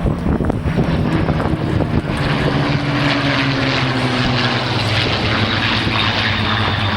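Propeller-driven aircraft flying a display, its piston engine drone loud and continuous, with the engine note sagging slightly in pitch partway through.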